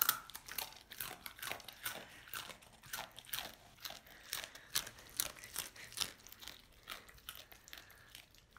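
A dog chewing dry, uncooked instant ramen noodles: a steady run of sharp crunches, about three a second, thinning out near the end.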